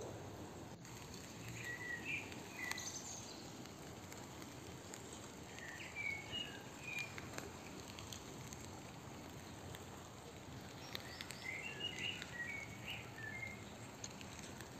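A bird singing short phrases of chirps three times, a few seconds apart, over steady outdoor background noise.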